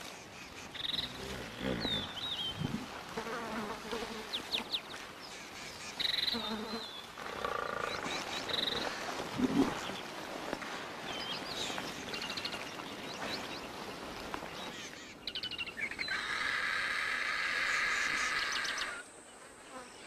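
Wild-animal soundscape: scattered short bird chirps and trills over a few low animal calls, then from about fifteen seconds a dense, steady buzzing chorus that drops away about a second before the end.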